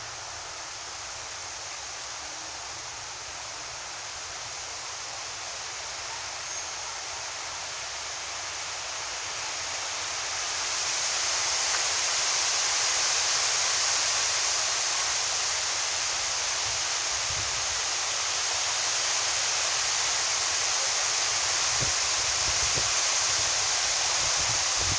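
Strong wind rushing through tree foliage, swelling louder about ten seconds in, with low buffeting of wind on the microphone near the end.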